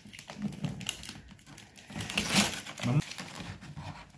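Gift wrapping paper crinkling and tearing in irregular bursts as a wrapped box is pulled open, loudest about two and a half seconds in.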